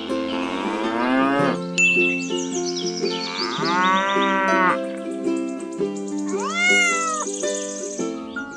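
Background music with three drawn-out cow moos laid over it, one at the start, one around the middle and one about three-quarters through, each rising and then falling in pitch.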